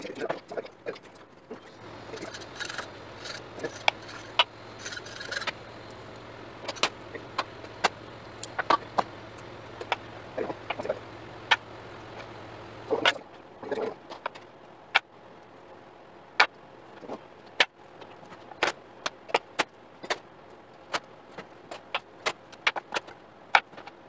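Irregular sharp clicks and taps of a knife against a plastic cutting board and steel counter as a raw whole chicken is cut and handled for deboning. A low steady hum stops about halfway through.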